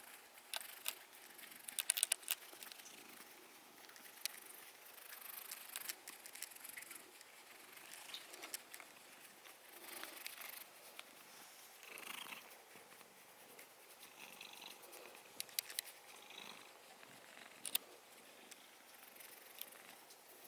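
A house cat purring softly, with scattered small clicks and rustles.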